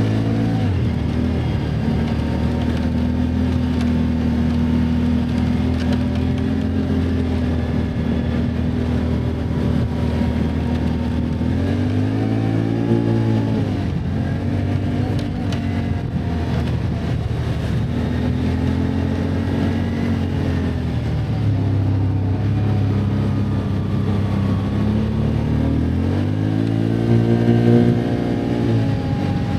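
Can-Am ATV engine running as it is ridden over a rough trail, its pitch rising and falling with the throttle. There are two stronger revs, about twelve seconds in and again near the end.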